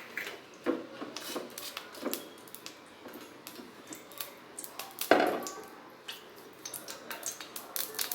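Scattered light clicks and knocks of kitchen utensils and containers being handled by the stove, with one louder knock about five seconds in.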